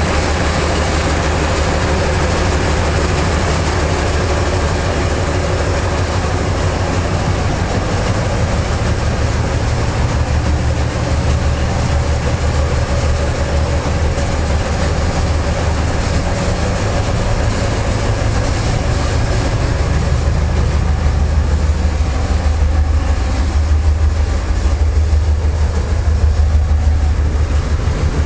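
2TE10M diesel-electric locomotive, its 10D100 two-stroke opposed-piston diesel engine running with a loud, steady low drone that grows a little louder in the last third.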